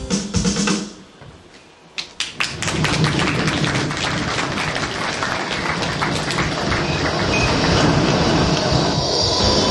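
A song stops within the first second; after a short lull and a few sharp clicks, a city street tram runs on its rails, a steady noise that slowly grows louder.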